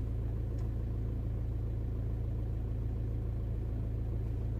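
Audi A3 8P engine idling steadily, a low even hum heard from inside the cabin.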